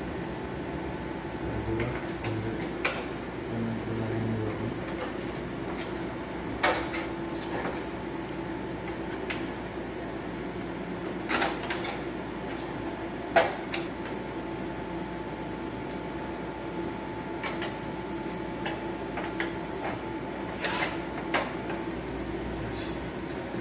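Scattered metal clicks and knocks as the opened Yamaha mixer amplifier's chassis is handled and screwed back together, with a few short runs of a cordless drill-driver. The sharpest knock comes a little past halfway, over a steady background hum.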